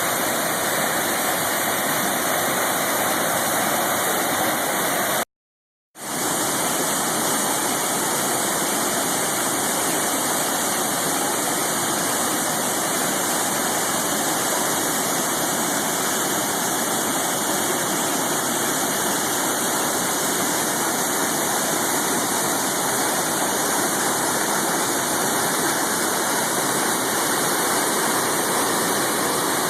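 Steady rushing of whitewater on the Sol Duc River, falling water and rapids. About five seconds in, the sound cuts out completely for about half a second, then comes back at the same level.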